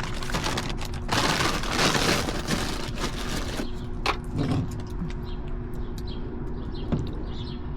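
Paper takeout bag and food wrappers being rustled and opened, with a few sharp clicks and crinkles, over a steady low hum.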